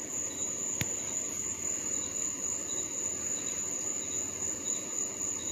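Outdoor insect chorus: a steady, unbroken high-pitched buzz, with one faint click about a second in.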